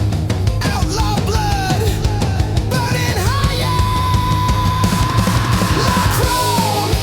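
Heavy rock music with a dense, driving backing. A high lead line bends through short phrases, then holds one long note from about halfway through and slides down near the end.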